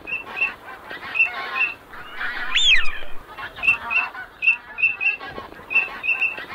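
A flock of wild geese honking: many short calls in quick succession, with one louder rising-and-falling call about two and a half seconds in.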